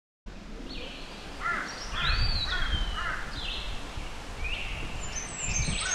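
Several birds calling in forest, a mix of short repeated chirps, slurred notes and a rising-then-falling whistle, over a low rumble.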